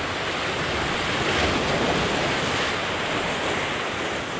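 Sea surf breaking and washing over the rocks at the shoreline, a steady rushing noise, with wind on the microphone.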